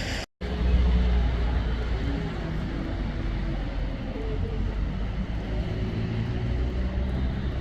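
Steady low rumble of a car driving, engine and road noise, after a brief cut-out of the audio near the start.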